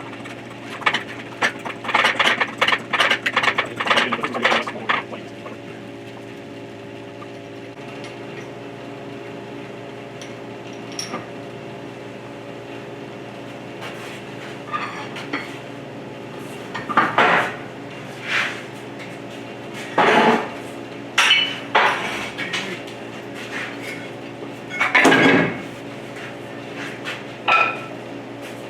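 A workshop machine hums steadily while steel parts and tools clank and clink against each other. The clatter is rapid and dense for the first few seconds, then comes as separate clanks every second or two.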